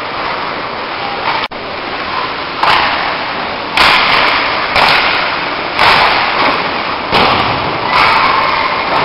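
Echoing ice-rink noise with a run of sharp bangs, about one a second, starting a couple of seconds in, each ringing out briefly in the hall.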